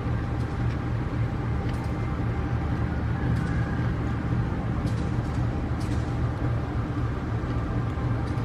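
CC 206 diesel-electric locomotive approaching under power, its engine giving a steady low rumble.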